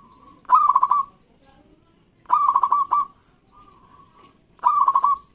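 Zebra dove (local perkutut) singing: three loud phrases of quick, rapidly pulsed cooing notes, each about half a second long and about two seconds apart, with softer drawn-out coos in between.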